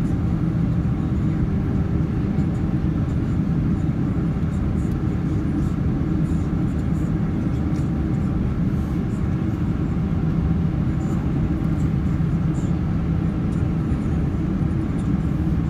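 Steady cabin noise of a Boeing 767 airliner on its landing approach: the engines and rushing airflow as a constant low rumble with a faint steady hum in it, heard from a window seat.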